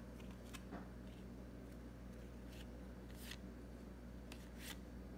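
2022 Topps Update baseball cards being flipped one at a time through a hand-held stack, each card sliding off with a brief, soft papery swish, about half a dozen at uneven intervals. A steady low hum sits underneath.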